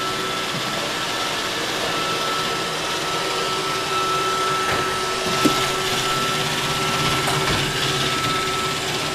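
Roomba robot vacuum running: a steady whir with a thin, constant high whine, and one short knock about five and a half seconds in.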